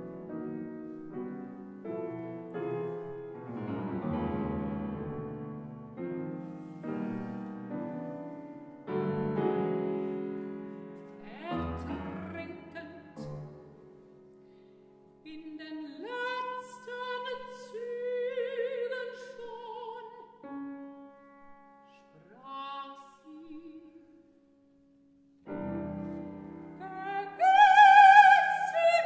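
Grand piano playing alone for the first half, then a mezzo-soprano singing a classical art song with wide vibrato over the piano. After a brief pause, a loud, higher sung phrase comes near the end.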